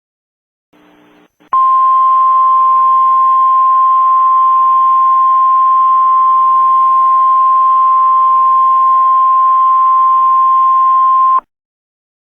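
Emergency Alert System attention signal: one loud, steady tone held for about ten seconds over hiss, starting about a second and a half in and cutting off abruptly near the end, announcing that a new emergency alert message follows.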